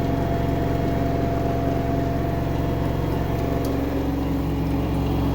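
LG 10 kg front-load washing machine running, a steady motor hum with a few faint ticks. The owner says the motor makes a sound like pebbles turning around inside it.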